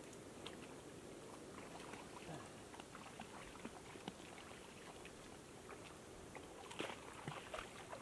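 Faint steady wash of river water, with scattered small clicks and ticks and a quick cluster of them about seven seconds in.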